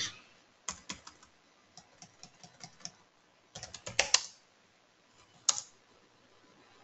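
Keys tapped on a computer keyboard in short, irregular runs, with a busier flurry about four seconds in and one louder click near the end.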